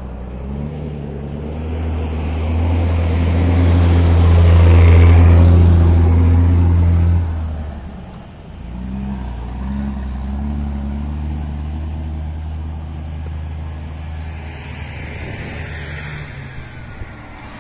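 A heavy tank truck's engine passing close by on the road. It grows loud over the first few seconds and cuts back sharply about seven seconds in, then pulls again more quietly for several seconds.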